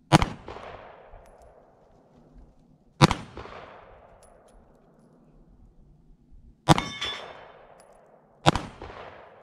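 Four shots from a Diamondback DB9 9mm subcompact pistol: one right at the start, then about 3, 6.7 and 8.5 seconds in, each with a short echoing tail. The third shot is followed by a brief metallic ring.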